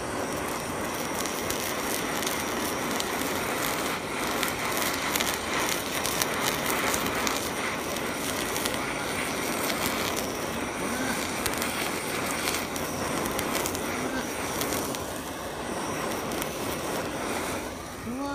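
Handheld gas torch running steadily, its flame searing the skin of sliced cured mackerel (shime saba) on a wooden board; the torch stops right at the end.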